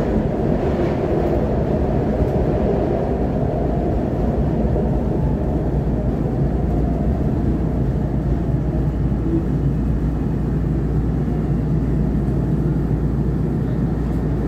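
SEPTA Market-Frankford Line train heard from inside the car, its wheels and traction equipment giving a steady rumble as it slows into a station and comes to a stop. The upper rumble eases over the first few seconds while a low hum grows.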